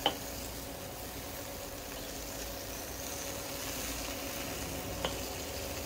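Chicken wings sizzling on the grate of a charcoal-fired Weber kettle grill over a faint steady hum. Metal tongs click sharply at the very start, and once more about five seconds in.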